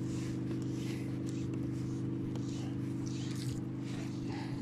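Jet boat engine running steadily: a low, even drone that holds one pitch throughout.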